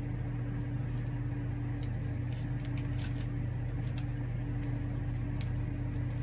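A baby's hands pulling at and fiddling with a roll of tape, making faint scattered crackles and rustles over a steady low hum.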